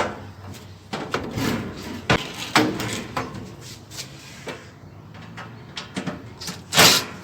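Knocks, clicks and clatter of handling a microwave and tools, with a louder rattle near the end.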